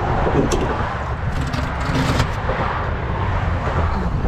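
A vehicle engine running with a steady low rumble, with a few knocks and scrapes between about one and a half and two seconds in.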